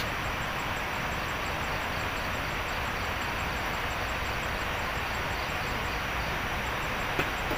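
Steady rushing background noise, even in level, with a faint, fast, high-pitched pulsing throughout and a single light click near the end.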